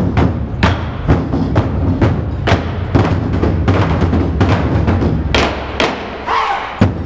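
Chinese barrel drums (tanggu) beaten with wooden sticks in an ensemble routine, about two strokes a second, some of them sharp clicks on the wooden rims, with a brief lull near the end.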